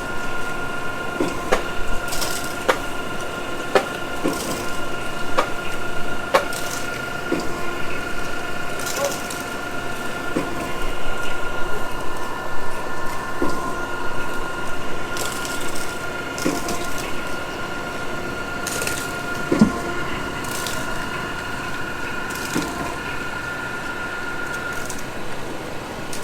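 Concrete pump running with a steady whine, and a sharp knock every second or so; the whine dies away near the end as the pump is shut off.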